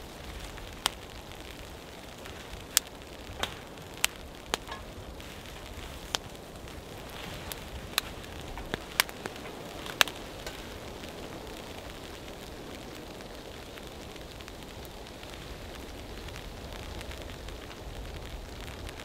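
Small wood fire crackling in a portable box stove, with about ten sharp pops in the first half over a steady soft hiss, then only the hiss.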